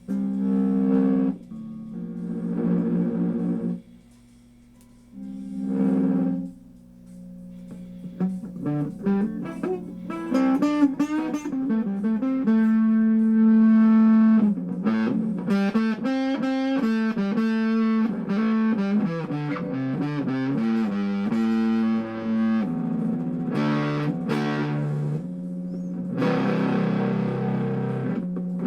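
Hofner 459 VTZ electric guitar played through an amplifier with its onboard fuzz switched in, a test of the repaired fuzz and treble-boost circuit: a few separate chords that ring and stop, then from about eight seconds in, continuous chords and single-note lines.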